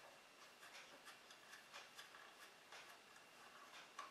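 Near silence, with a few faint, scattered light clicks and rubs.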